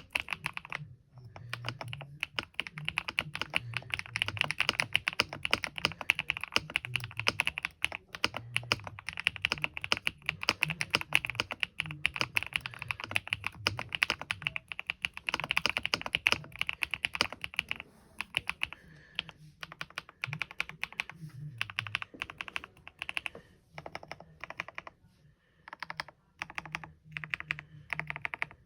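Typing on a Kisnt 75% wireless mechanical keyboard with pre-lubed Kisnt linear switches and PBT keycaps. It is a switch sound test: a dense run of rapid keystrokes that thins to slower, more spaced typing in the last third.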